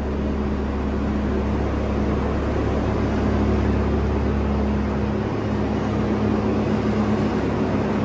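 Large diesel farm machine engine running steadily at a constant speed, a low hum with a steady tone over it.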